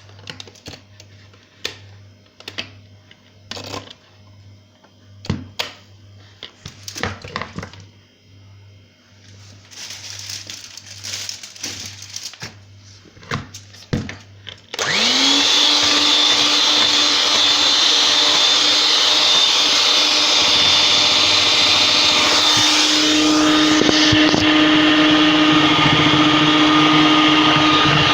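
Scattered clicks and knocks of handling, then about halfway through an electric hand mixer switches on, its motor quickly spinning up and running steadily as it beats the egg, sugar and oil batter.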